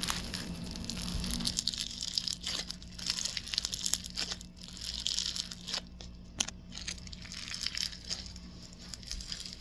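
Crinkling, crunching handling noises with irregular sharp clicks and crackles as a slime and its plastic packaging are handled and squeezed.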